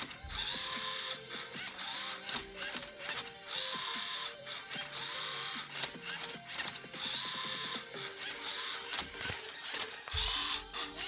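LEGO Mindstorms EV3 Rubik's cube solving robot working through its moves: its motors and plastic gears whir in short bursts, each under a second long, with clicks of the mechanism turning and flipping the cube in between.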